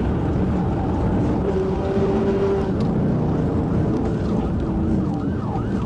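Engine and road noise inside a Dodge Charger patrol car running at speed in pursuit. Near the end its siren comes in, rising and falling quickly in a yelp.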